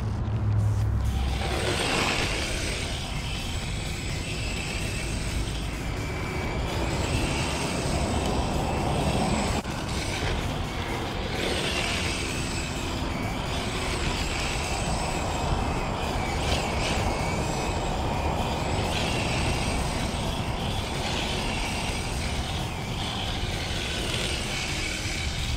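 Yokomo YD-2 SX III electric RC drift car running on asphalt: its motor whines as the throttle comes on and off, with the plastic drift tyres scrubbing as it slides.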